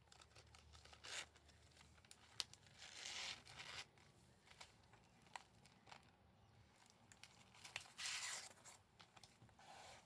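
Quiet handling of wallet packaging: a few short bursts of tearing and crinkling, about 1 s, 3 s and 8 s in, with small clicks and taps in between.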